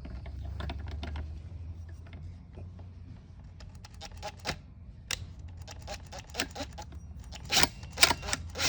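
Small metal tools and chainsaw parts clicking and clinking against each other in a run of irregular taps, the loudest near the end, as the chainsaw's clutch is being worked off. A steady low hum lies underneath.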